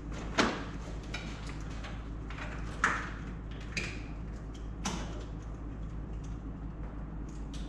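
Plastic wiring-harness connectors being handled and worked into place: a scatter of clicks and rattles, with sharper knocks about half a second in, near three seconds and near five seconds, over a steady low hum.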